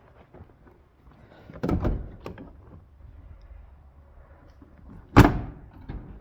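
Truck cab door: a dull clunk about a second and a half in, then the door slammed shut, a sharp loud bang near the end.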